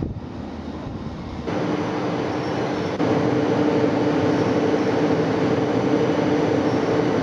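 Great Orme Tramway's cable-hauled tramcar running along its track: a steady drone with two held notes that comes in about a second and a half in and grows louder about three seconds in.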